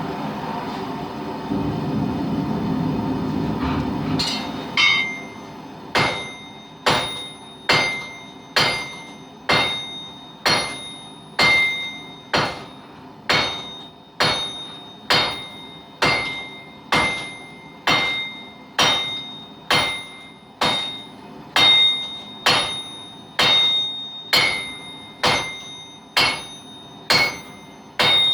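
Hammer blows on an anvil, forging steel: steady, evenly paced strikes a little more than one a second, each with a high ringing tone, starting about four and a half seconds in. Before the hammering, a steady rushing noise.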